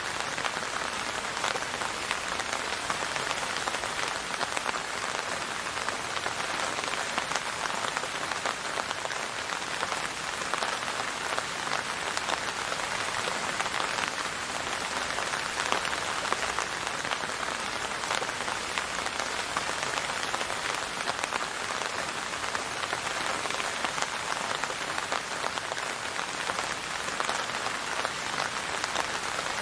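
Steady rain falling on a hard surface, with many close individual drops pattering over an even hiss.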